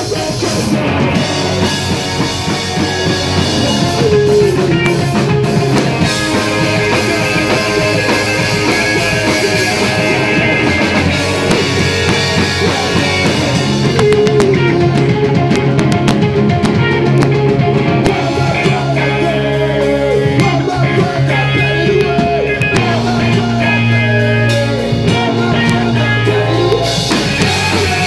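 Punk rock band playing live and loud: distorted electric guitars, bass and a drum kit, with a man's lead vocal at times.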